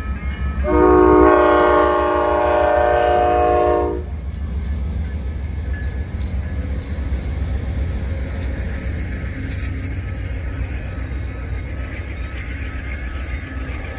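Amtrak GE Genesis diesel locomotive's chime horn sounding one loud blast of about three seconds for the grade crossing, starting shortly after the beginning. After the horn stops, the locomotive and its bilevel Superliner cars rumble steadily past over the rails.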